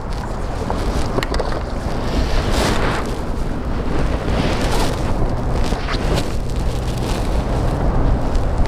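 Wind buffeting the microphone over moving water around a small boat, with a few louder gusts.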